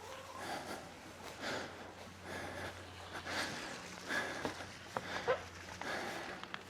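Rustling and scuffing of hay bales being moved and stacked by hand, a string of short noisy bursts.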